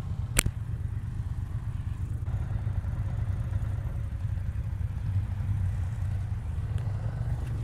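Triumph Bonneville Speedmaster 1200 parallel-twin engine idling steadily at a standstill, a low rumble, with one sharp click about half a second in.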